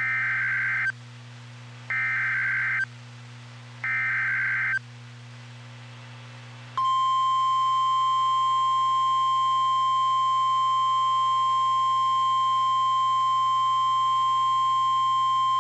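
NOAA Weather Radio alert tones: three one-second bursts of SAME digital header data, a second apart, then after a short gap the steady single-pitch 1050 Hz warning alarm tone, held for about nine seconds. The sequence signals the start of a tornado warning broadcast.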